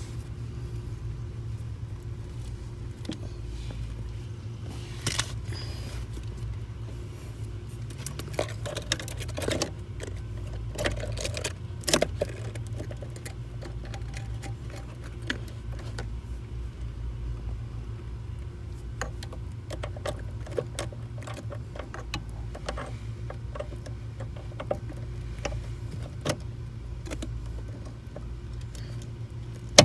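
Scattered clicks and light metallic rattles, loudest about five, ten and twelve seconds in, as a zip-tied, compressed clutch return spring is worked onto a car's clutch pedal assembly. A steady low hum runs underneath.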